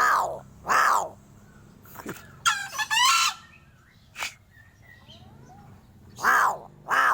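Crow calling: two short harsh caws at the start, a longer, odd, warbling call about two and a half seconds in, then two more harsh caws near the end.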